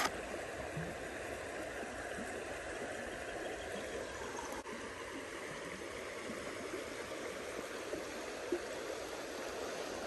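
Steady rushing of a creek running high after rain, with one sharp click right at the start.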